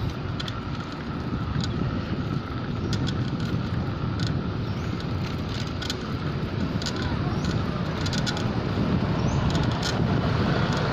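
Steady low rumble of outdoor road noise with a faint thin tone throughout and scattered faint ticks.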